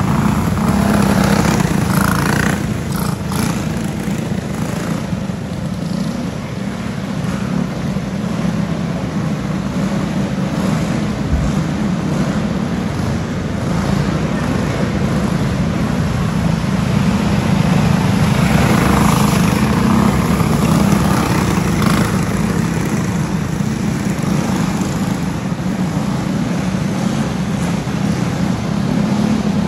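Racing go-kart engines running at speed as a pack of karts laps a dirt oval, the buzz swelling and fading as they pass and move away, heard inside an enclosed arena.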